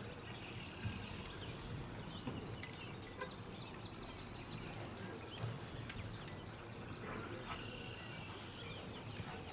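Outdoor ambience of birds chirping and trilling in short repeated phrases over a steady low rumble, with a few faint thumps.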